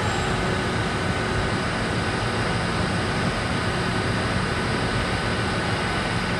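LNER Azuma (Hitachi Class 800 bi-mode) train standing at the platform with its underfloor diesel engines and cooling fans running: a steady rumble with a constant whine on top.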